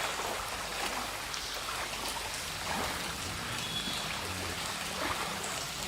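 Flooded street water: a steady wash of moving water with small splashes and trickles.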